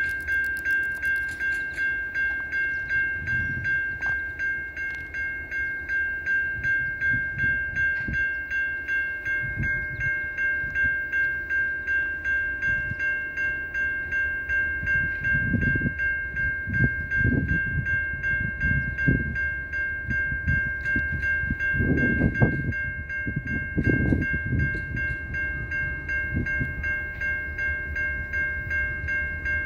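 Ekyrail electronic grade-crossing bell ringing steadily, a repeated high ding at a regular beat, which signals the crossing is activated for an approaching train. Low rumbling surges come and go about halfway through.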